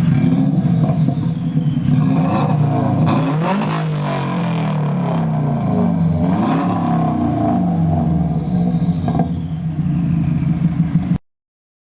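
Car engine revving, its pitch rising and falling several times, with a few clicks. The sound cuts off abruptly near the end.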